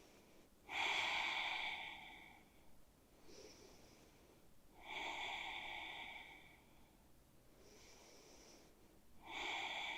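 A woman's slow, audible breathing while holding a balancing yoga pose. There are three louder breaths about four seconds apart, with fainter breaths between them.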